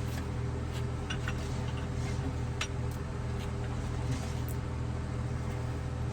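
A steady low engine drone, like an idling vehicle or machine, with a few faint, light clicks of a pipe wrench working on a water meter nipple fitting.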